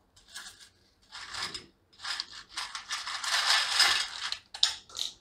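Crisp fried potato wafers rustling and crackling as a hand stirs and tosses them in a steel bowl, in several uneven bursts, loudest a little past the middle, with a few short sharp crackles near the end.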